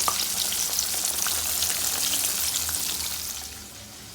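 Flour-coated chicken pieces sizzling and crackling in a pot of very hot oil, a dense hiss with many small pops. The sizzle drops away sharply about three and a half seconds in.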